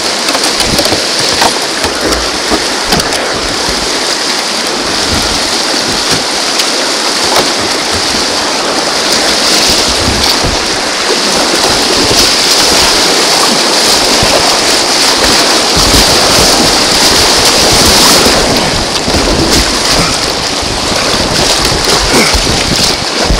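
Shallow whitewater rapids rushing and churning right around a kayak's bow, loud and steady, with a few short knocks.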